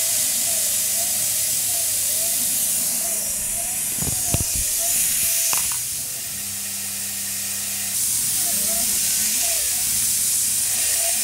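Tormach PCNC 1100 CNC mill running a small tool around a tool-steel insert, with a steady hiss of mist coolant from a brass nozzle. A faint whine rises and falls over and over as the machine moves, with a few sharp ticks about halfway through.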